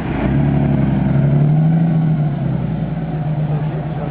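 Porsche 930 Turbo's turbocharged air-cooled flat-six engine running at a steady pitch, swelling a little in loudness about a second and a half in.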